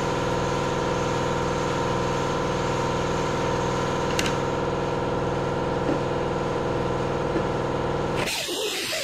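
Air compressor motor running steadily, cutting off abruptly about eight seconds in. An air-powered sander grinding on a boat propeller blade takes over near the end.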